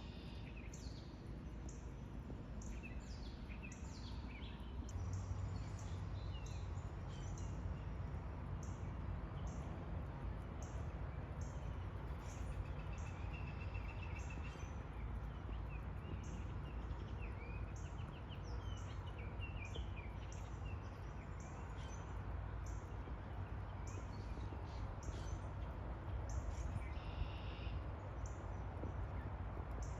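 Birds chirping and calling in many short, high notes over a steady low background rumble.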